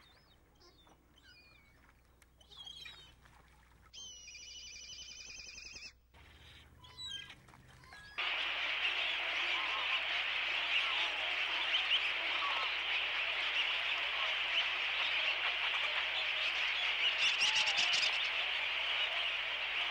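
A few faint bird chirps and a short trilling call, then about eight seconds in, the dense clamour of a large flock of small shorebirds calling together starts abruptly and carries on.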